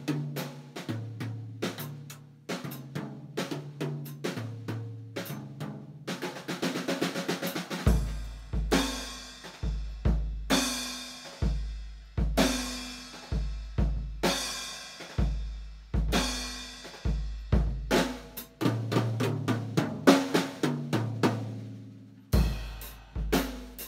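Basix drum kit played: quick snare and tom hits build into a fast roll, then heavy kick drum beats about every second under crashing cymbals, with a lighter fill before the kick and cymbals come back near the end.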